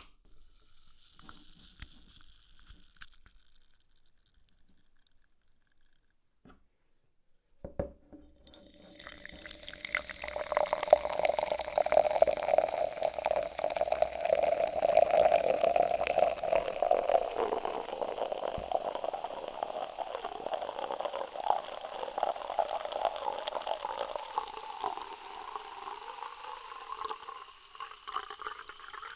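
Sprite soda poured into a glass, starting suddenly about eight seconds in after a few faint clicks. The pour runs on with a pitch that rises slowly as the glass fills, along with fizzing.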